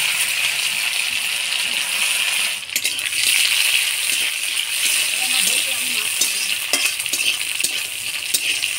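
Hot ghee sizzling in a pan with whole spices, cashews and raisins frying: a steady frying hiss that dips briefly about two and a half seconds in. Light clicks of a spatula stirring against the pan run through it.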